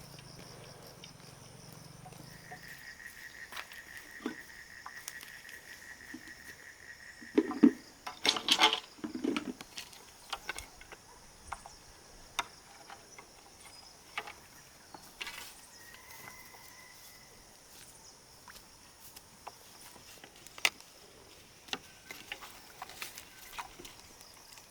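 Insects chirring steadily in high, unbroken tones, with a cluster of loud knocks and rustles about eight seconds in and scattered clicks.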